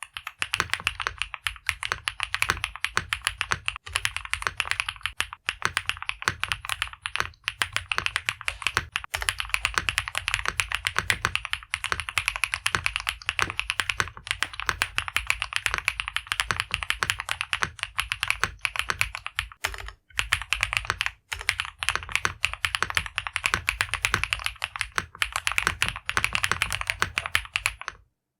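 Fast, continuous typing on a Hippo65 aluminium gasket-mount mechanical keyboard with Huano Orange linear switches: a dense patter of keystrokes with two short breaks about twenty seconds in, stopping just before the end.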